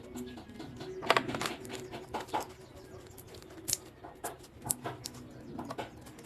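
Slime being handled, giving irregular soft sticky clicks and pops, with several sharper pops about a second in and again near the middle.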